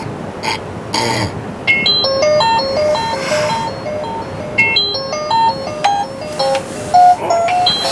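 Background music: a simple melody of short chiming notes stepping up and down, coming in about a second and a half in after two brief swishes of noise.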